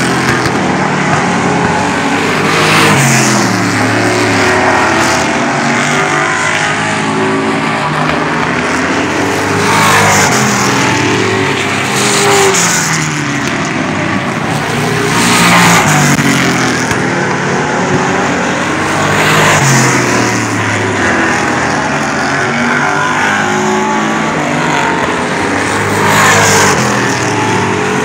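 Race car engines lapping an oval track, the pitch climbing and dropping as they accelerate down the straights and lift for the turns. The sound swells loudly several times as cars come past the grandstand.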